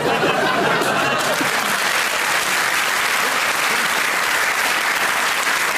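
Audience applause: dense, steady clapping from a large crowd that swells up at the start and holds on evenly.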